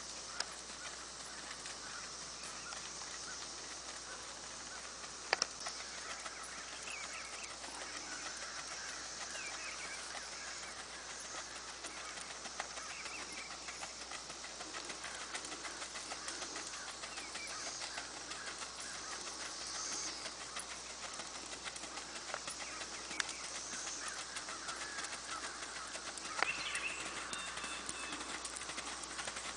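Outdoor ambience with birds chirping now and then over a steady background hiss, and a few scattered faint knocks.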